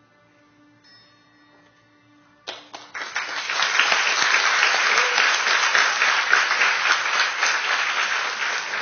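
Faint held final notes of the accompaniment, then about two and a half seconds in an audience breaks into applause that swells within a second and keeps going loud.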